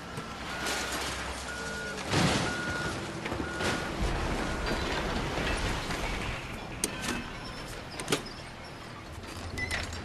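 Construction-site machinery running, with a reversing alarm beeping about twice a second through the first half. Several loud clanks and bangs sound over it.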